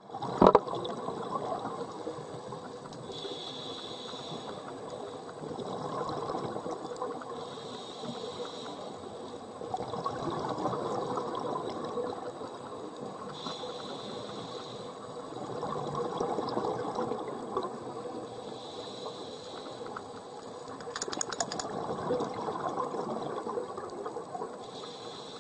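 Scuba diver breathing through a regulator, heard underwater: a hiss on each inhalation, then a bubbling rush of exhaled bubbles, repeating every few seconds. A short burst of sharp clicks comes about three-quarters of the way through.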